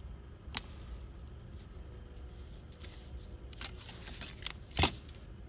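Metal transmission parts clinking and clicking as they are handled on the bench. There is a single click early, a quick run of light clinks around four seconds in, and the sharpest knock of metal on metal just before the end.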